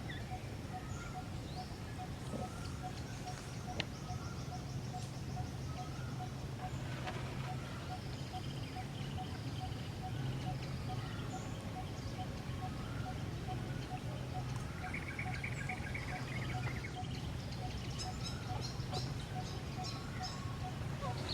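Forest ambience: small birds chirping and trilling, with an evenly repeated short call running throughout, over a steady low rumble.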